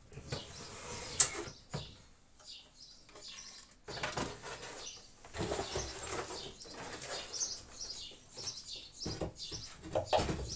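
Wooden cabinet door swung open and a pull-out shelf carrying a bench drill press drawn out on its drawer slides: irregular knocks, clicks and rumbling handling noise, with a sharp click about a second in. Birds chirp in the background.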